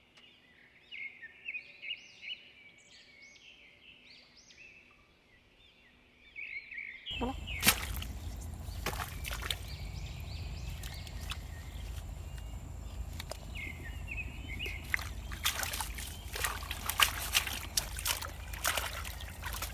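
Small birds chirping for the first several seconds. From about seven seconds in, wind rumbles on the microphone while hands splash and squelch in shallow muddy water among water hyacinth, grabbing a fish, with the splashing thickest near the end.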